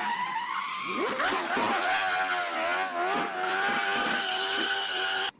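Race car engine sound effect: a high-revving engine whose pitch sweeps up and dips several times, then holds fairly steady. It starts and cuts off abruptly.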